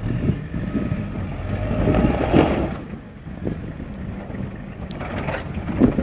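4x4 pickup truck engine labouring as the truck crawls up a rocky step, revving harder about two seconds in, then easing back to a lower rumble.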